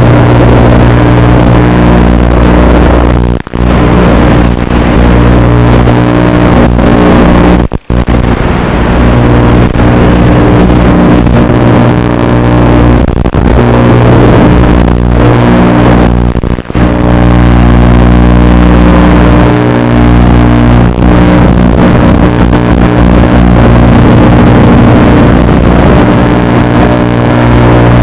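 Very loud, distorted steady buzz on an FPV quadcopter's flight recording, a constant low hum with overtones that barely changes in pitch, cutting out briefly three times.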